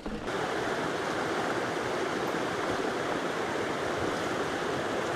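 Steady rush of running water from a stream, setting in abruptly just after the start and holding even throughout.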